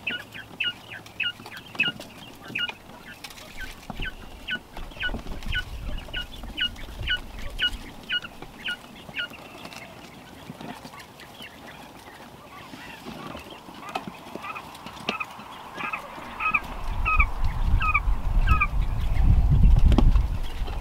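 Young coturnix quail peeping: a quick run of short, falling calls, about two or three a second, that stops about nine seconds in and comes back more slowly a few seconds before the end. A loud low rumble builds underneath over the last few seconds.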